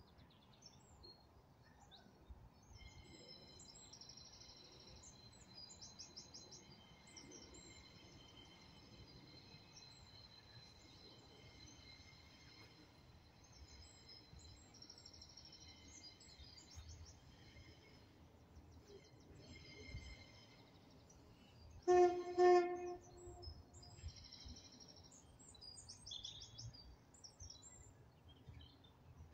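Songbirds singing repeated trills, and about two-thirds of the way through a Class 142 Pacer diesel railbus sounds its horn in two short blasts, the loudest sound.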